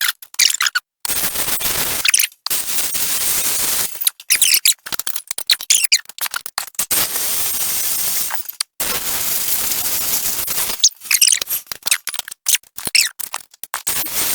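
Miller Multimatic 220 MIG welder laying short beads on steel brackets: a steady crackling, sizzling arc in runs of one to two seconds, stopped and restarted several times.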